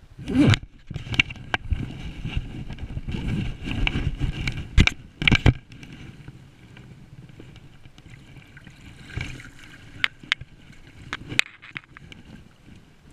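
Water sloshing and splashing, with several sharp knocks and scrapes, busiest in the first five seconds or so and quieter after.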